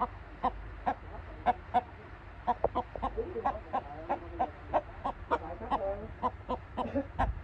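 Chickens clucking: a busy run of short, quick clucks mixed with a few brief drawn-out calls.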